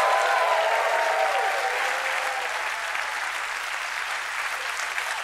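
Studio audience applauding, with cheering voices over the clapping in the first second or two, then steady clapping that eases off slightly.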